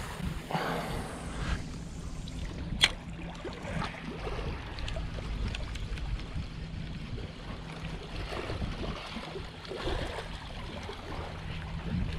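Wind on the microphone and small waves lapping against a rocky shoreline, with one sharp click about three seconds in.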